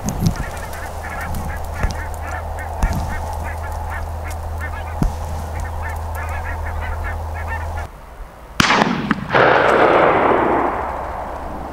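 A flock of waterfowl calling in many quick, honking notes. About eight and a half seconds in, a loud shotgun shot goes off, followed by about two seconds of loud rushing noise.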